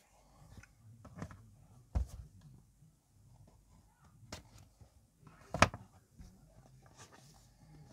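Handling noise from a cardboard phone box: scattered taps and knocks as it is turned in the hands and put down on a plastic-covered table. The two loudest are a dull thump about two seconds in and a sharp knock a little past five seconds, with faint rustling between.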